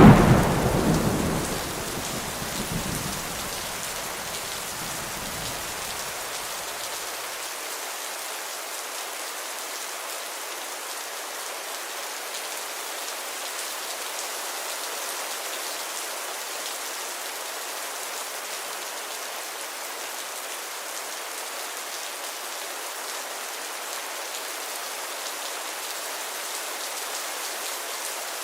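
Heavy rain falling steadily. A thunderclap at the very start rumbles away over the first several seconds, leaving only the even hiss of the rain.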